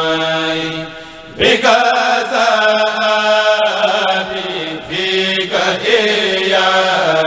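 A kourel, a group of men, chanting a khassida in Arabic into microphones with long held notes. There is a short break for breath about a second in before the next phrase begins.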